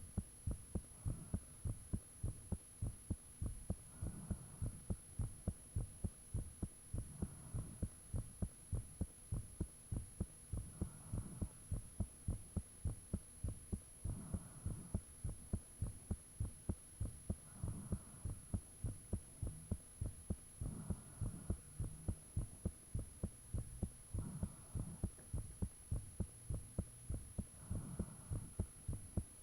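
A human heartbeat recorded close up: steady, regular low thumps about twice a second, with a faint whooshing every few seconds and a steady high whine behind it.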